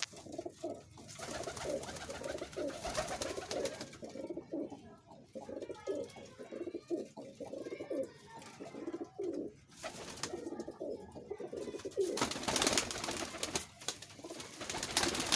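Domestic pigeons cooing over and over, several birds overlapping. A broader rustling noise joins over the last few seconds.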